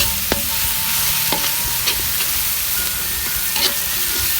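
Chopped garlic, shallots and green chilli sizzling in hot oil in a pan as they are stir-fried, with the spatula clicking against the pan a few times.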